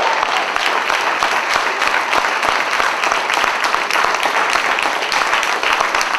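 Audience of children applauding, a dense, steady clapping with the performers clapping along.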